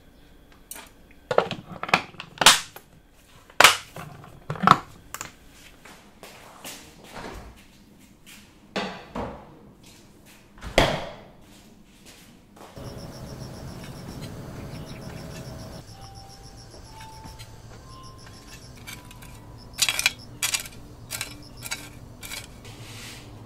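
Chopsticks clicking and knocking against a glass food container of kimchi. Then a refrigerator's steady hum with a short run of electronic beeps stepping up in pitch, and near the end a metal garden hoe striking stony soil several times.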